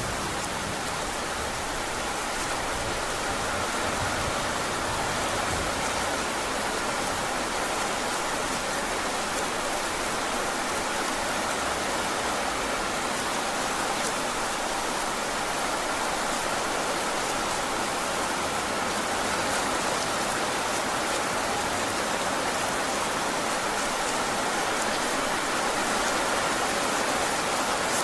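Heavy rain falling steadily on a roof and terrace, an even unbroken hiss with no thunder.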